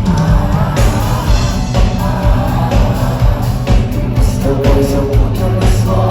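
Live rock band playing loudly: a steady kick-drum beat and heavy bass under sung vocals.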